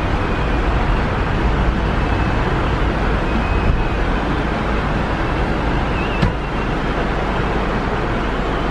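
Steady road and engine noise inside a moving passenger van, a continuous low rumble, with a single brief knock about six seconds in.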